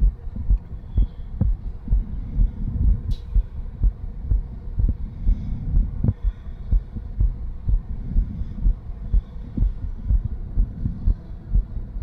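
Heart sounds heard through a stethoscope on the chest after light exercise: a quick, regular beat with a whooshing murmur that is more prominent than the beats themselves. This is turbulent blood flow, which the doctor puts down to a stiff left ventricle (diastolic dysfunction) with some regurgitation. A brief click sounds about three seconds in.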